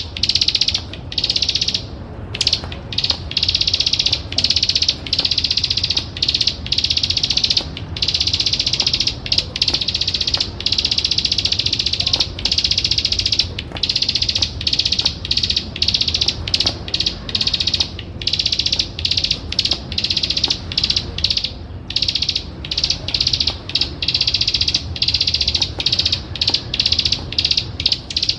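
Plain prinia (ciblek sawah) giving its fast, rattling 'klik klik' trill: a dense, high-pitched run of rapid ticks that goes on almost without stopping, broken by short pauses every second or two.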